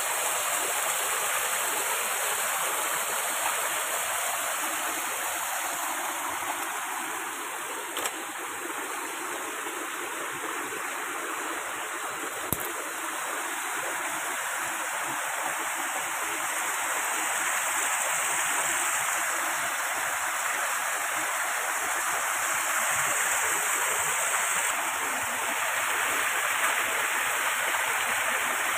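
Small rocky stream running, a steady rush of water spilling over stones, with two sharp clicks partway through.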